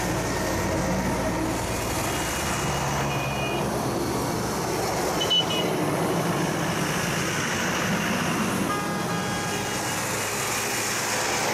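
Military convoy of army trucks and armoured vehicles driving past on a city street: steady engine rumble and tyre noise on wet road. A brief high tone about five seconds in.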